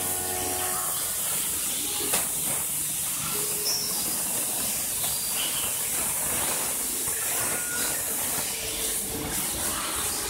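Machine-tool coolant draining through a fabric filter bag and splashing into a bucket of filtered liquid below: a steady hiss, with a single click about two seconds in.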